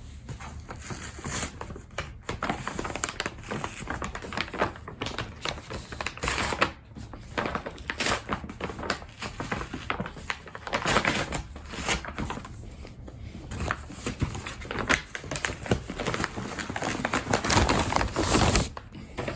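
A parcel being opened by hand: irregular crinkling, rustling and tearing of packaging, with scattered clicks and scrapes.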